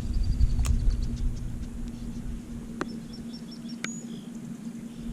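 A songbird calling in two quick runs of short, high, evenly spaced notes, over low wind rumble and a steady low hum. A few sharp clicks stand out.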